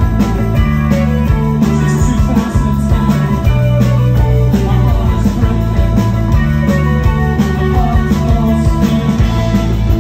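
A rock band playing live and loud: two electric guitars, electric bass and a drum kit, with steady drum hits under sustained bass notes.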